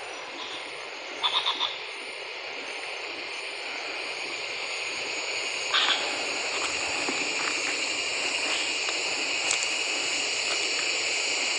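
Rushing hiss of wind and light rain sweeping through the forest canopy, slowly growing louder. A few quick clicks come about a second in and again near the middle.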